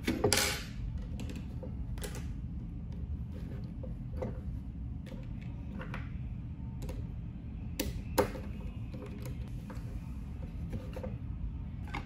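Small clicks, taps and scrapes from hands working electrical wiring: cables being handled and a screwdriver turning terminal screws on a breaker and a plastic lamp holder. There is a louder scraping rustle about half a second in and a single sharp click about eight seconds in, over a low steady background noise.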